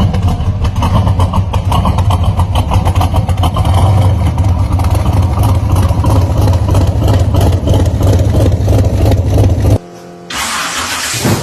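Car engine running loudly and steadily with a rapid pulsing exhaust note. About ten seconds in it cuts off abruptly, and after a short quieter gap a hissing rush of noise begins.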